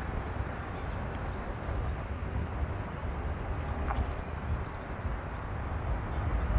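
Steady outdoor street ambience with a low, uneven rumble and no distinct event standing out.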